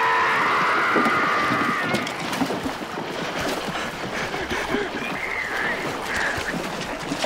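Film soundtrack of a shark attacking a man on a boat: a man's long, wavering scream for about the first two seconds, then fainter cries and groans over splashing water and boat noise.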